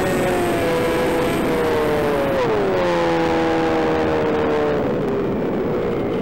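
Electric motor and propeller of an AR600 flying wing whining steadily in flight. The pitch drops about two and a half seconds in as the throttle is eased back for the landing approach, then holds lower and fades as the wing glides down.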